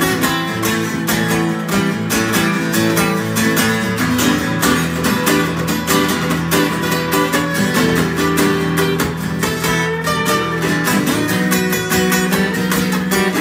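Two acoustic guitars strummed together in a steady rhythm.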